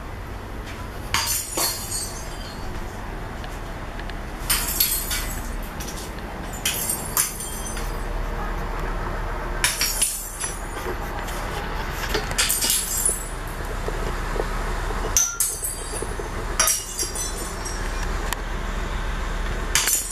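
Recorded glass-breaking and clinking sound effects played back through a pair of Sony SS-H12 loudspeakers: sharp crashes with ringing tails, often in pairs, every two to three seconds, over a steady low hum.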